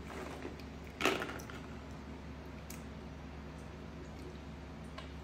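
A single knock about a second in, as the monkey climbs up to its seat at the wooden table, then a low steady hum with a few faint ticks.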